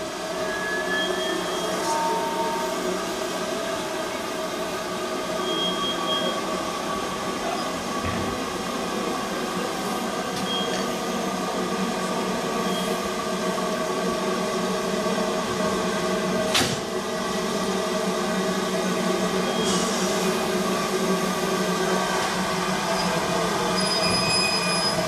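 Railway turntable turning with a steam locomotive aboard: a steady mechanical running sound with several held whining tones. A sharp click about sixteen seconds in.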